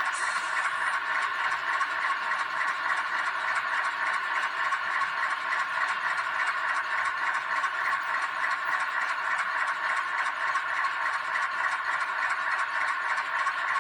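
H0 model train with a model Alco 313 diesel locomotive running steadily along the track: an even whirring of the electric motor and gears with a fast, fine rattle from the wheels and running gear.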